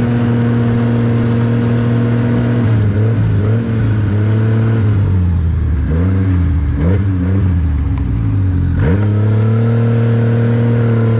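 Snowmobile engine running at a steady cruise, then dropping and rising in pitch several times as the throttle is eased off and on. About nine seconds in it revs sharply back up and holds steady again.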